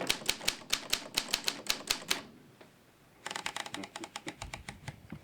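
Typewriter being typed on: a quick run of sharp key clacks, about five a second, stops about two seconds in, and after a short pause a faster run of lighter clacks starts.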